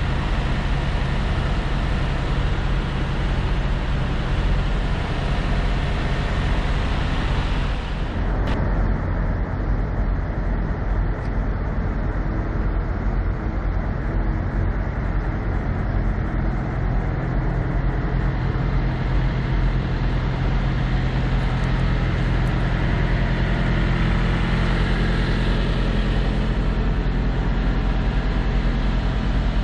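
Steady low drone of idling diesel truck engines. A sharp click comes about eight seconds in, after which the higher hiss drops away.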